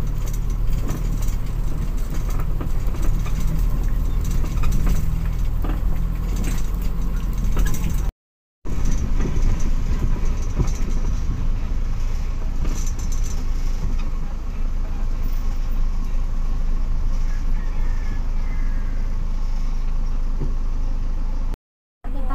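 Inside a moving van-type ambulance: steady engine rumble and road noise heard from the rear cabin. The sound cuts out completely twice, briefly, about eight seconds in and again near the end.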